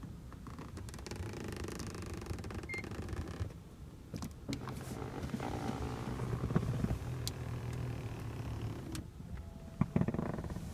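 Power front passenger seat motors running as the seat moves on the rear-seat 'relax' control: a steady low hum in two stretches with a short pause about four seconds in, and a few light clicks.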